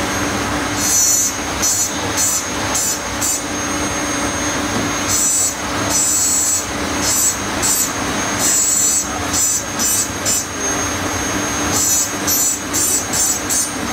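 Crystal being engraved on a spinning engraving wheel. A steady low motor hum runs throughout, broken by clusters of short, high grinding hisses each time the glass is pressed against the wheel.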